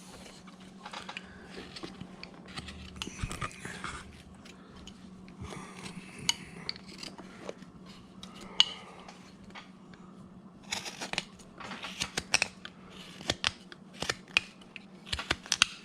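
Carving blade cutting wood by hand: scattered short snicks and clicks that come thicker in the last few seconds, over a faint steady low hum.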